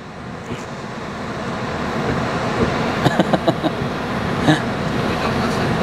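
Steady rushing noise inside the cab of a Sinotruk Howo NX truck from its running diesel engine and air conditioning, growing gradually louder, with a few light clicks about three seconds in as the gear lever is worked into first gear.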